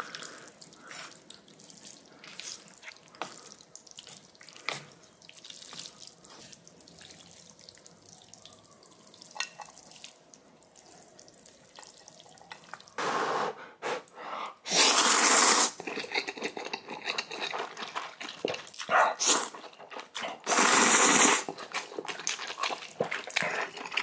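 Water from a sink tap gushing on and off four times in the second half, about a second each, with faint drips and small clicks before them: hands being washed at a sink.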